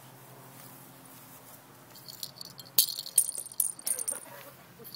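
Small plastic cat-toy ball with a rattle inside, rattling and jingling in quick irregular bursts as a cat bats it about. The rattling starts about two seconds in and is loudest near the middle.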